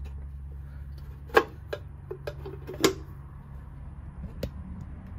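Metal cover of an outdoor air-conditioner disconnect box being closed, giving sharp clicks and knocks: two loud snaps about a second and a half apart and a few lighter clicks. A steady low hum runs underneath.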